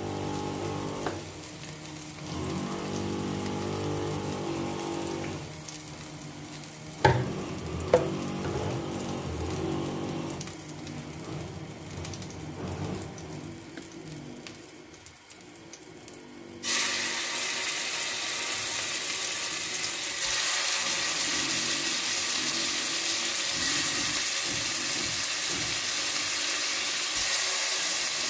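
Chunks of raw beef sizzling in hot oil in a pot as they start to sear, a steady hiss that sets in suddenly about halfway through. Before that, a quieter stretch with two sharp clicks about a second apart.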